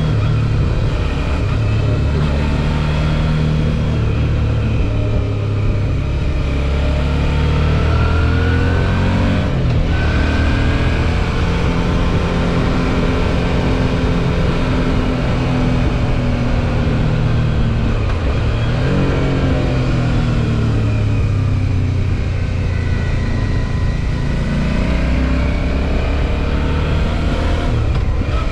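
Suzuki V-Strom 650 XT's V-twin engine under way, its pitch rising and falling with the throttle. It climbs for several seconds, breaks off briefly about ten seconds in as a gear changes, drops back around eighteen seconds and climbs again.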